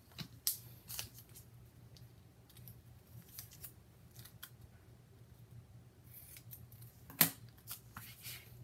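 Small scissors snipping through a strip of black construction tape to trim its edges straight, with several sharp snips in the first second and a half. Quieter handling and rustling of the tape strip follows, with one sharp click about seven seconds in.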